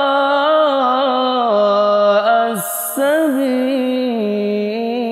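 A solo male voice reciting the Qur'an in a melodic, cantillated style. Long vowels are held and ornamented with slow slides between notes, broken by one quick breath about two and a half seconds in before the chant carries on.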